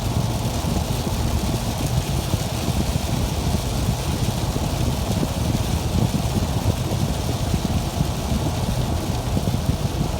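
Steady road and engine noise inside a moving car's cabin: a low, even rumble with a fainter hiss above it.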